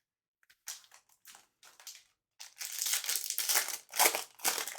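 Packaging of a trading card hobby box being torn open and crumpled, a wrapper crinkling and crackling. It starts with a few short crackles, then turns into a dense run of crinkling about halfway through.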